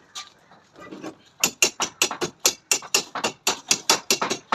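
A hammer striking rapidly and evenly, about five to six sharp blows a second, starting about a second and a half in after a few lighter knocks.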